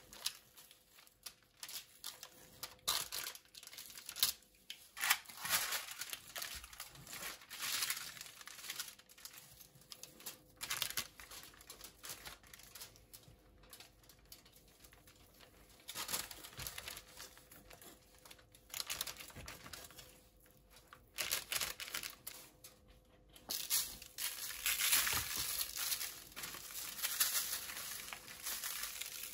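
Baking paper crinkling and rustling in irregular bursts as gloved hands handle and knife-score raw lamb shoulders lying on it. The rustling grows denser and steadier over the last few seconds while seasoning is sprinkled and rubbed in.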